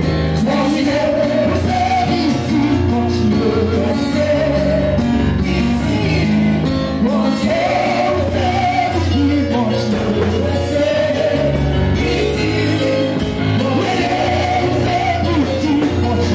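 Congregation singing a lively worship song together, with a band accompanying: a bass line and a steady beat.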